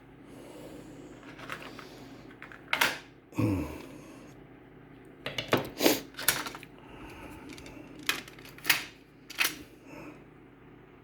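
Scattered sharp clicks and taps from hard plastic being handled, about seven in all, with a short low falling sound about three and a half seconds in.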